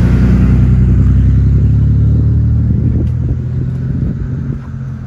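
A vehicle engine idling close by, a steady low hum at one pitch that begins to fade near the end.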